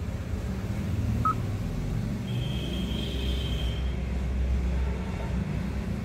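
A steady low rumble, with a short beep about a second in and a thin high tone lasting about a second and a half near the middle.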